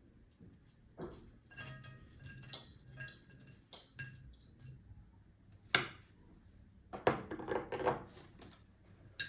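Cutlery and dishes clinking at a breakfast table: scattered light clinks of metal on china and glass, some ringing briefly, with one sharper knock about six seconds in and a busier run of clatter after it.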